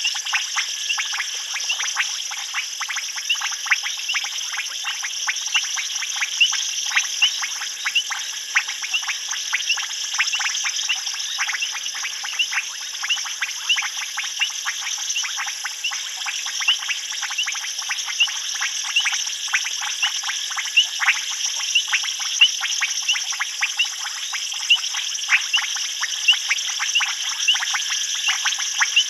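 Night chorus of many frogs giving rapid, overlapping short clicks and chirps, over a steady high insect drone.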